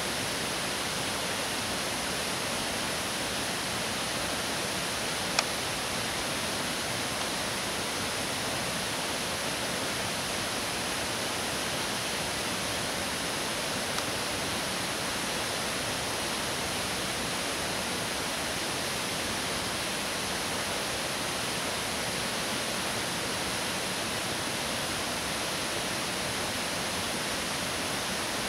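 Steady rushing of water, an even hiss that does not change, with two small clicks about five and fourteen seconds in.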